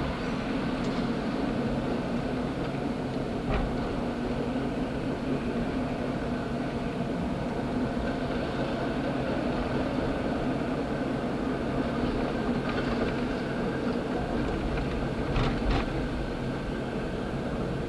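Steady running drone of a car driving along a street, heard from inside its cabin, with a faint click about three and a half seconds in and a couple more near the end.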